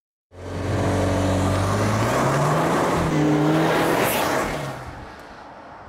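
Alfa Romeo Stelvio Veloce's turbocharged four-cylinder engine pulling hard as the SUV drives past, the engine note rising, then a rush of tyre and wind noise as it passes about four seconds in before fading away.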